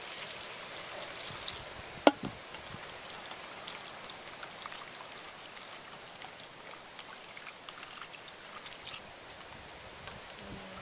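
Water pouring from a metal kettle into a plastic bowl of raw shrimp, then splashing and trickling as the shrimp are rubbed clean by hand in the water. A single sharp knock about two seconds in.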